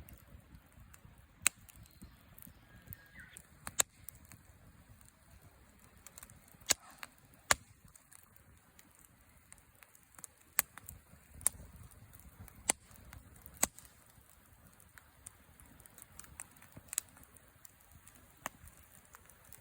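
Wood campfire crackling: sharp, irregular pops of burning wood, about a dozen of them scattered a second or more apart, over a faint low rumble.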